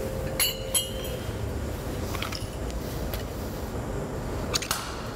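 A few light metallic clinks as steel tools and parts are picked up and handled, two close together near the start and another pair near the end, over a steady low hum.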